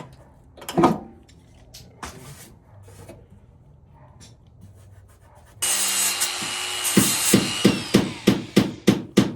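Sandpaper rasping on a car body panel, a steady scrub starting about five and a half seconds in that turns into back-and-forth hand-sanding strokes at about three a second.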